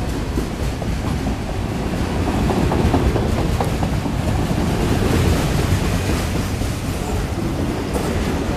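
Autorack freight cars rolling past close by: a steady rumble of steel wheels on the rail, with scattered clicks and clanks.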